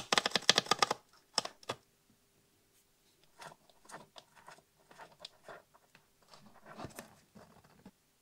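Hands working a glass-fibre turret board and fitting small metal hex standoffs to it: a fast clatter of clicks in the first second, two single clicks just after, then soft intermittent ticks and scrapes of metal parts and fingers on the board.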